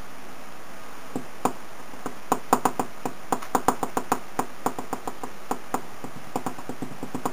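Computer keys clicking at an irregular pace, several presses a second, starting about a second in, over a steady hiss.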